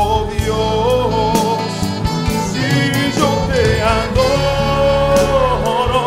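Spanish-language Christian worship song: a full band with a sung melody line that holds and bends long notes over a steady drum beat.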